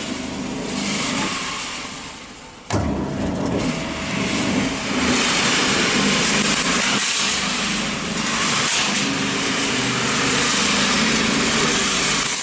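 A nut roasting machine running, its motor turning the stainless drum, with the roasted nuts sliding and rattling through it as discharge begins. The sound jumps up suddenly about three seconds in and then stays as a steady, hissing rush.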